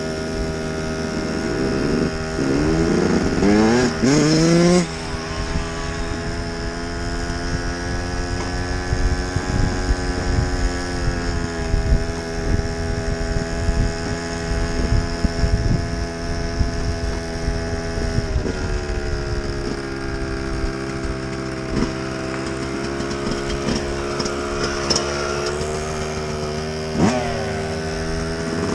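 Small motorbike engine running steadily. It revs up a few seconds in, drops back, and gives another short rev near the end.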